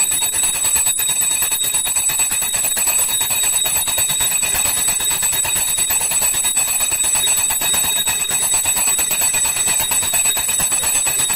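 A puja hand bell rung rapidly without a break, giving a steady high ringing.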